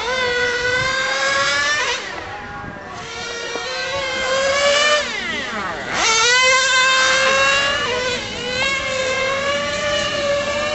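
Serpent 720 1:10 nitro touring car's small glow engine screaming at high revs as it laps, its pitch rising and falling with the throttle. The pitch sweeps down steeply as the car passes close, about two seconds in and again around five seconds, and it is loudest from about six seconds in.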